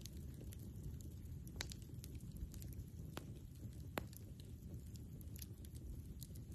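Wood campfire burning and crackling: scattered small snaps and a few sharp pops, the loudest about four seconds in, over a steady low rumble.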